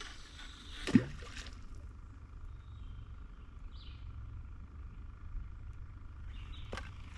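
Steady low outdoor rumble with a single sharp thump about a second in, and a lighter rustle near the end.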